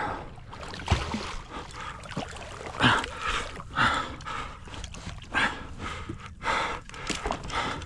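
Irregular bursts of water splashing with a few knocks against a kayak hull, as a big hooked snook thrashes at the surface beside the boat during the last moments of the fight.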